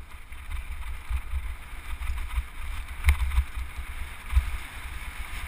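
Mountain bike rolling fast down a loose rocky gravel track. Wind buffets the action camera's microphone, tyres and frame rattle over the stones, and there is one sharp knock about three seconds in.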